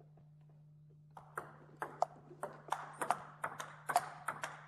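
Table tennis rally: a celluloid ball clicking quickly and evenly off the bats and table as a penhold player push-blocks an opponent's loop drives. The clicks start about a second in.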